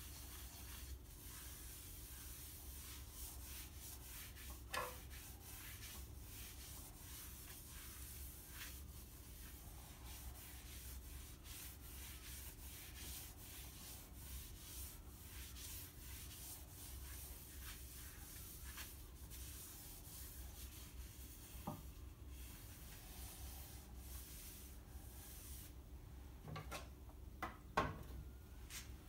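Paper towel rubbing boiled linseed oil into the surface of a turned oak bowl: faint, soft wiping over a steady low hum, with a few light knocks, the loudest near the end.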